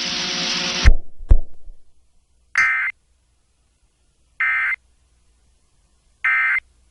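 Emergency Alert System end-of-message code: three short, evenly spaced buzzy data bursts, each about a third of a second long, after a broadcast hiss with a low hum cuts off about a second in with two clicks.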